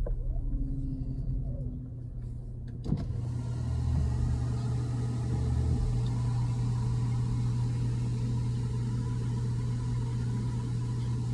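Car running, heard from inside the cabin: a low hum, then a click about three seconds in, after which a louder steady hum with road-like noise carries on.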